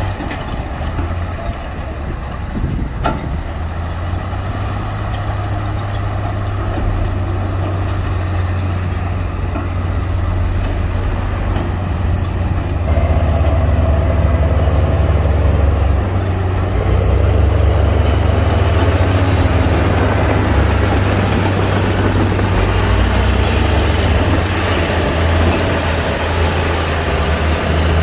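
Heavy diesel engine of earthmoving machinery running steadily under load, with a deep low drone that grows louder about halfway through. Faint high whines glide up and down near the end.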